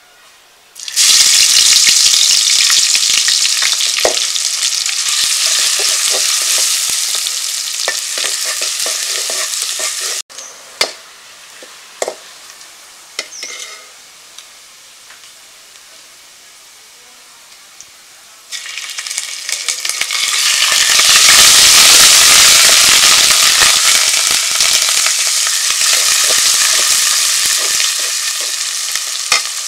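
Sliced onions hitting hot mustard oil in an aluminium pot and sizzling loudly, stirred with a metal spatula. The sizzle starts suddenly about a second in and fades; a quieter stretch with a few sharp scrapes and clicks follows, then a second loud sizzle flares up around eighteen seconds in and slowly dies down.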